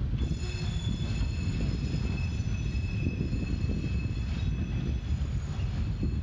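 Slow CSX freight train of coal cars rolling past, a steady low rumble from its wheels on the rails. Over it a steady high-pitched squeal, typical of wheel flanges grinding on the tight curve of a wye, starts just after the beginning and fades near the end.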